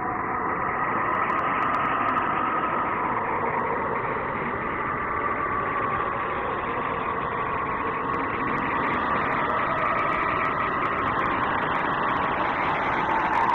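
Eerie synthetic 'planet sound' space drone: a steady rushing noise with a brighter tone band that slowly drifts and swells.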